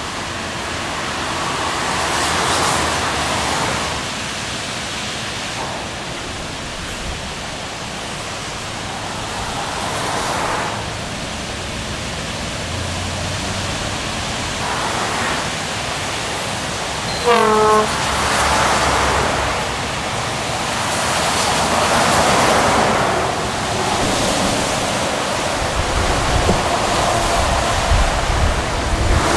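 Motorway traffic on a wet road: a steady hiss of tyres on standing water, swelling as lorries and cars pass. About seventeen seconds in there is a short vehicle horn note, the loudest sound.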